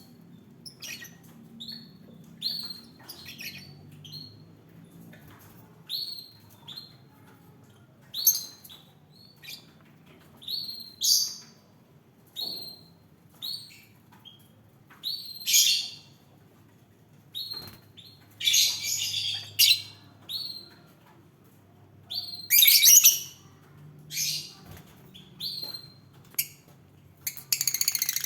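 Lovebirds chirping with short, sharp, repeated calls, broken by several louder, harsher squawks. Near the end a continuous rasping noise starts.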